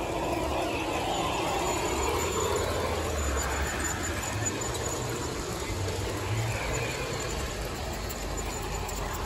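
Large-scale garden-railway model train rolling past on its track: the wheels of the locomotives and freight cars rumble and click over the rails. It is a little louder in the first half as the cars go by, then eases off.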